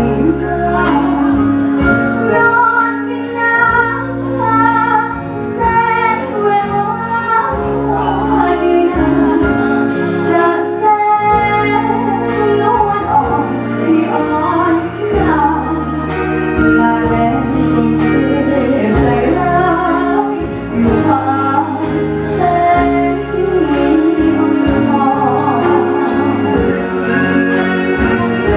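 A woman singing a Thai luk thung song into a microphone over steady backing music with a bass line.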